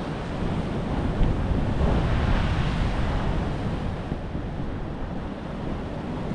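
Sea surf washing against a rocky shore, with wind rumbling on the microphone. The surf swells louder about one to three seconds in, then eases.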